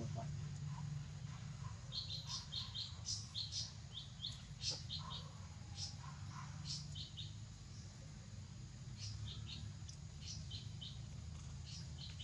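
Short high-pitched chirps, often in quick pairs and clusters, in two runs with a brief lull between, over a steady low rumble.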